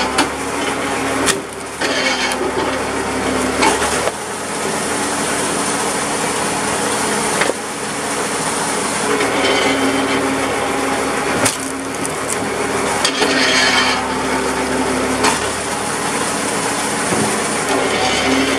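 Old homemade tractor-PTO-driven hydraulic wood splitter running under load, with a steady hum from the tractor and pump. Several times the oak rounds crack and splinter as they split on the wedge.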